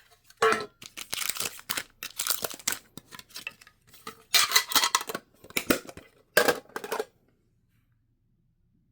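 Pokémon card booster packs being torn open by hand, their foil wrappers ripping and crinkling in irregular bursts for about seven seconds, with small clatters of handling; then it falls silent.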